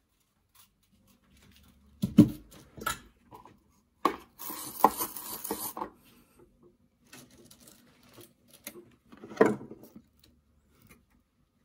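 Small tools and parts being picked up and set down on a wooden workbench: a few sharp knocks and clinks, the loudest about two seconds in and another near the end, with a stretch of scraping and rustling in the middle.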